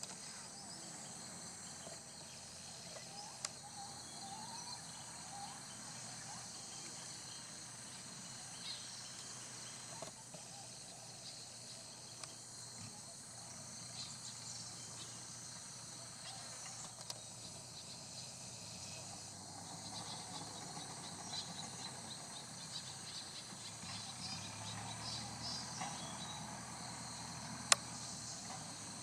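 Steady high-pitched insect chorus in forest, with scattered short chirps and a single sharp click near the end.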